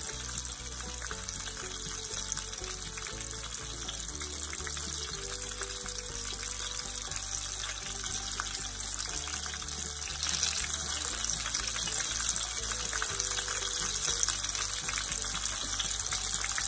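Background music with steady low bass notes, over a continuous crackling, sizzling hiss.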